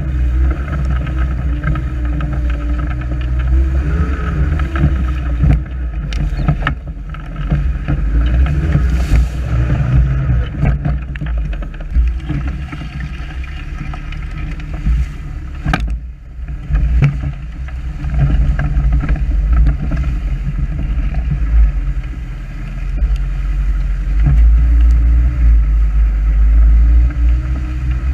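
Off-road buggy's turbocharged VW AP engine running under way over rough ground, its rumble rising and falling with the throttle, heard close up from the buggy itself with wind on the microphone. A sharp knock comes about sixteen seconds in, and the engine pulls harder over the last few seconds.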